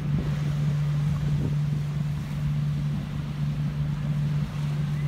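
Motorboat engine out on the water running with a steady low drone, over the wash of waves breaking on the beach.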